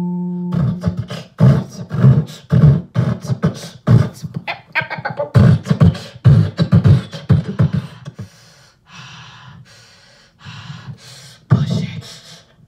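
A woman beatboxing into a handheld microphone, with rapid kick-like thumps and sharp snare-like clicks in a quick rhythm. A held sung note ends about half a second in. The beat turns softer a little past the middle and comes back loud near the end.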